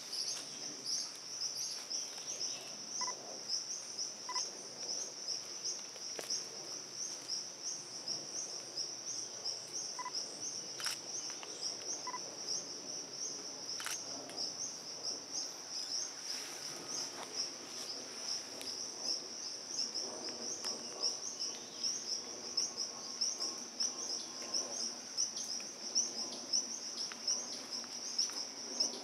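Continuous insect chorus, a high-pitched, fast-pulsing trill, with a few short single notes from a bird scattered through.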